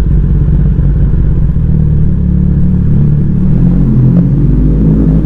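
Kawasaki ZX-10R's inline-four engine running at low revs as the bike rolls at walking pace, a steady note that wavers slightly with the throttle.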